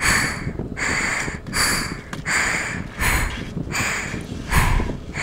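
A person panting heavily and out of breath, about seven loud breaths roughly one every three-quarters of a second.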